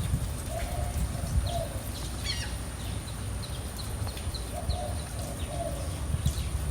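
Birds chirping and calling over a low rumble of outdoor noise, with two pairs of lower whistled notes among the chirps.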